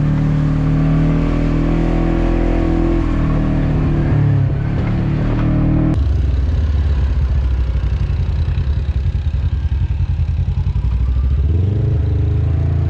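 ATV engine running on a dirt trail, its pitch shifting with the throttle. About halfway through the sound cuts abruptly to a lower engine note with an uneven pulsing, which climbs again as it revs up near the end.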